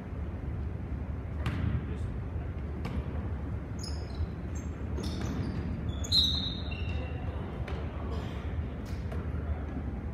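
Basketball game sounds on a hardwood gym floor: a ball bouncing in scattered knocks and sneakers squeaking in short high squeals, the loudest squeak a little past halfway. Faint voices carry in the echoing hall.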